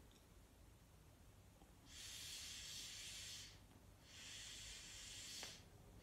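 Two long, hissing draws of breath, each about a second and a half, from someone smoking hemp resin over a lighter flame. There is a faint click near the end of the second draw.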